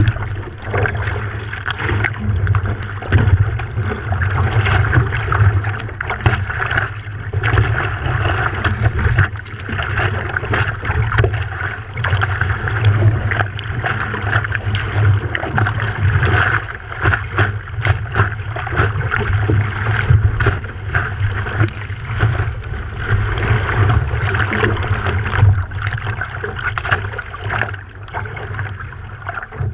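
Water rushing and splashing past the nose of a stand-up paddleboard riding a wave, with wind buffeting a board-mounted camera's microphone.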